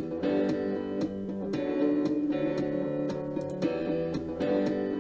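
Background music played on a guitar, with notes plucked in a steady run.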